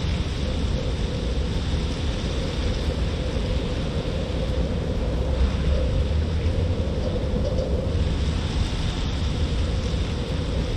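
Steady rain hissing over a wet city street, with a constant low rumble of city background noise underneath.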